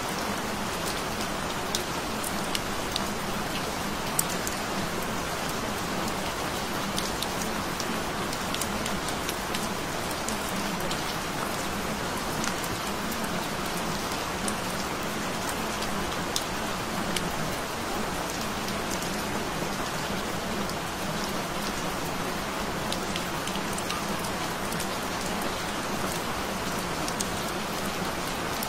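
Steady rain falling, with sharp ticks of individual drops scattered throughout.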